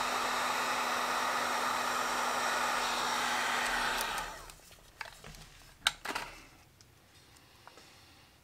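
Electric heat gun blowing a steady stream of hot air with a constant low motor hum, heating a small steel nut; about four seconds in it is switched off and fades out. A few light clicks and a sharper tap follow.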